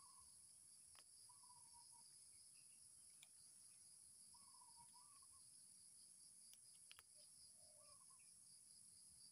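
Faint outdoor background: a steady high-pitched insect chorus, with a bird giving short calls several times and a few faint ticks.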